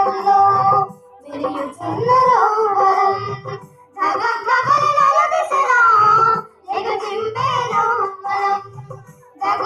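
Telugu children's song, sung in a child's voice over a steady drumbeat, in phrases with short breaks between them.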